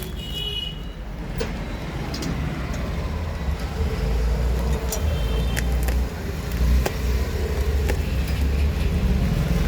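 Steady rumble of road traffic, with a couple of short horn toots, one near the start and one about five seconds in, and a few sharp clicks from handling the parts and packaging.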